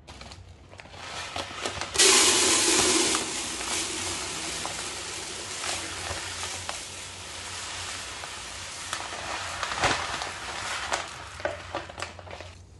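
Raw rice grains pouring from a plastic sack into a hard plastic storage bin: a steady rushing hiss with scattered ticks. It starts sharply about two seconds in, is loudest for the first second of the flow, and dies away just before the end.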